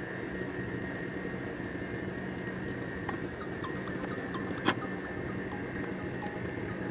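Scissors snipping artificial grass fibres: a few light clicks and one sharp snip about two-thirds of the way through, over a steady background hum.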